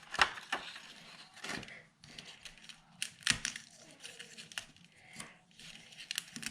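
Die-cut cardstock pieces being popped out of their sheets and handled: paper rustling broken by a series of sharp snaps and taps, the loudest about a third of the way in.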